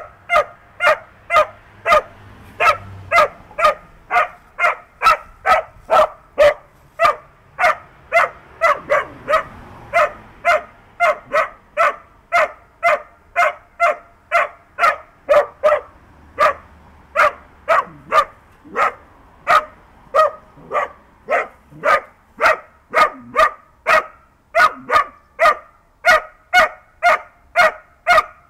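Small hound barking steadily at a badger, short sharp barks about two a second without let-up.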